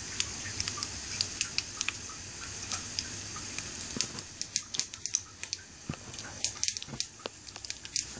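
Mustard seeds and urad dal sizzling in hot oil in a small steel pan for a tempering, with scattered sharp pops as the seeds crackle. The pops come thicker from about halfway.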